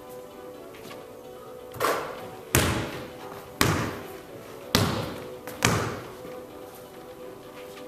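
Basketball bouncing on a wooden gym floor, five hard bounces roughly a second apart, each echoing in a large hall.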